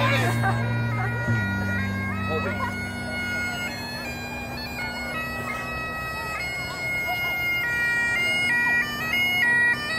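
Bagpipes playing a tune over a steady drone, the melody growing louder about two-thirds of the way through, with voices faintly behind.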